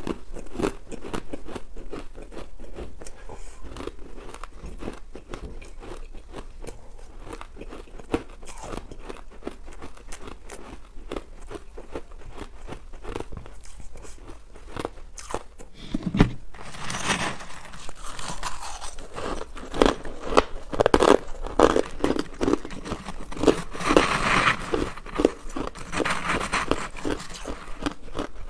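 Crushed ice being chewed: a dense run of small crisp crunches that grow louder and sharper about halfway through.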